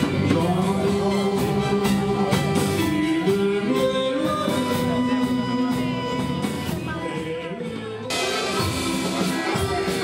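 Live dance band playing, with drums, congas and keyboard and a singing voice. About eight seconds in, the music cuts abruptly to another passage.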